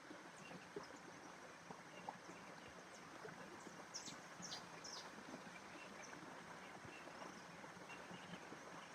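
Faint outdoor nature ambience: a steady soft hiss with scattered small ticks and faint high bird chirps. Three short, high, falling bird notes come about four seconds in.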